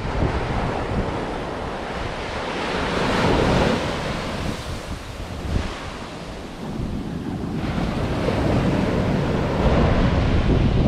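Ocean surf breaking and washing up the sand, with wind buffeting the microphone; the surge swells about three seconds in, and the wind rumble grows louder near the end.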